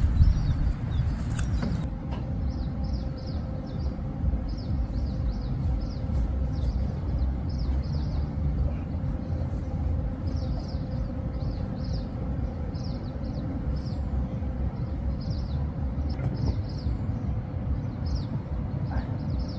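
Small birds chirping again and again over a steady low rumble, with a sharp knock right at the start.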